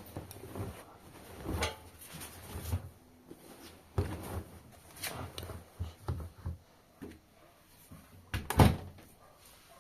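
Irregular knocks and clunks of things being handled, like doors or lids opened and shut, in a small room, with one louder bang near the end.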